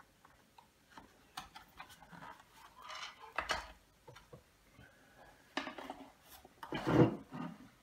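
Clicks, creaks and knocks from the plastic case of a FitBit Aria bathroom scale being worked apart and turned over, with wooden chopsticks wedged in its seam, and a louder knock about seven seconds in.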